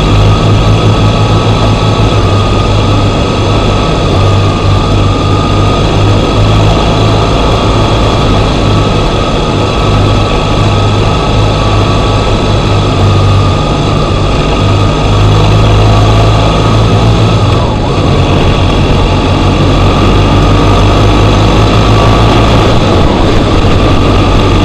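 BMW R1200GS boxer-twin motorcycle engine running steadily while riding, heard from the bike itself, with wind and road noise over it. The engine note dips briefly about three-quarters of the way through.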